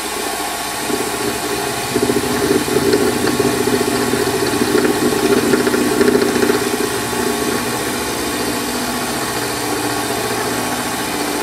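Warco lathe running with a 12 mm end mill turning in the headstock collet at about 376 rpm, milling a slot: a steady motor and spindle hum with the rough grinding of the cutter in the metal. The cutting noise gets heavier from about two seconds in and eases after about seven seconds.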